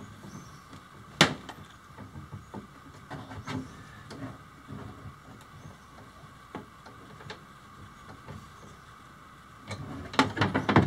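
Small clicks and knocks of a wire being worked into the terminal of a solar charge controller by hand, with one sharp click about a second in and a quick run of knocks near the end.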